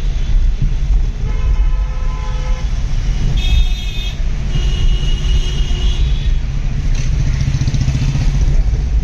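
Road traffic heard from inside a moving vehicle: a steady low rumble of road and engine noise, with other vehicles' horns sounding three times in the first six seconds.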